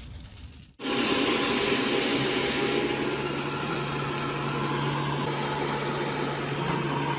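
Homemade vacuum cleaner's small electric motor and fan running with a steady whir and hum, starting abruptly about a second in.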